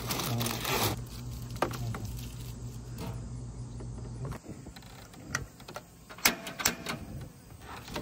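Heavy-duty aluminum foil crinkling as it is handled and pressed into a gas grill's firebox, then a few short sharp taps and clicks in the second half. A low steady hum sits underneath and stops about halfway.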